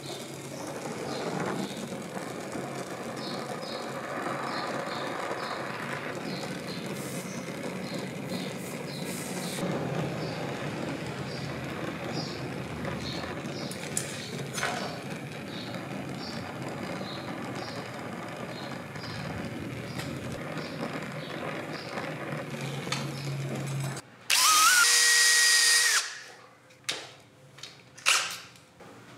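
A gas torch flame hisses steadily as it heats a steel compass joint for soldering. Near the end a much louder, short whir rises in pitch and then holds steady, followed by a few sharp metallic scrapes and clicks.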